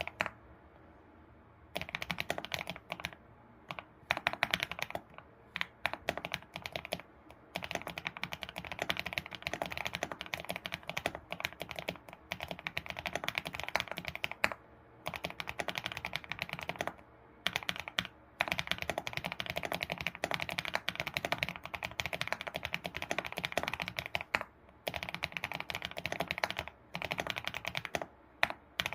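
Fast typing on an ABKO computer keyboard: dense runs of keystrokes broken by brief pauses, starting about two seconds in.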